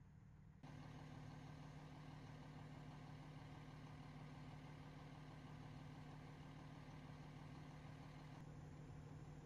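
Fire engine idling: a steady, faint low engine hum that starts abruptly about half a second in.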